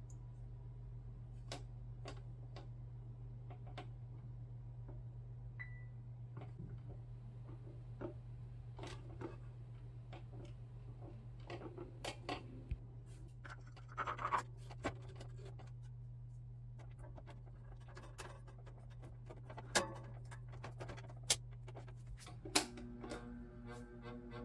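Irregular plastic clicks, taps and scrapes of an electric fan's parts being handled, over a steady low hum.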